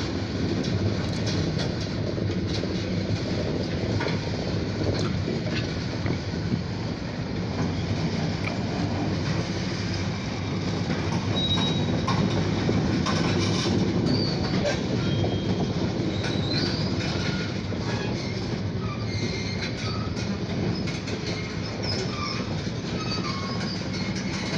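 Freight train of grain hopper cars rolling past on the rails: a steady rumble of steel wheels with scattered clicks over the rail joints and a few brief high wheel squeals.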